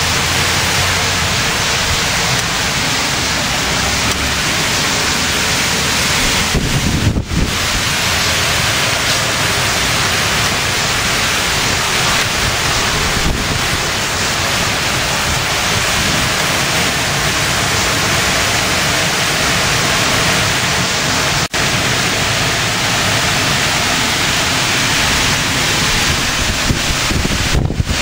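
Storm-force wind and torrential rain: a loud, continuous rush of wind and driving rain, with gusts buffeting the microphone.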